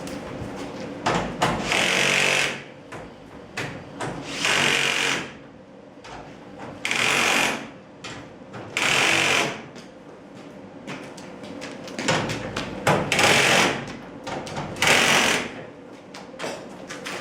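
Power drill running in short bursts, about six times, driving screws while garage door hardware is fastened.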